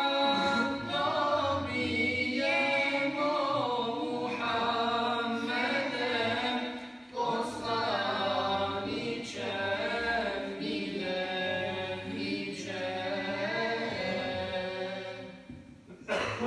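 Unaccompanied religious chanting by male voice in long, sustained melodic phrases, with a short break about halfway through. It fades out shortly before the end.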